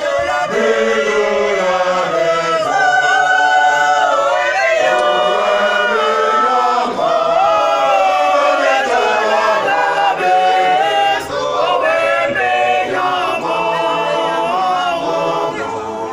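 A women's church choir singing a cappella, several voices together in held, gliding melodic lines.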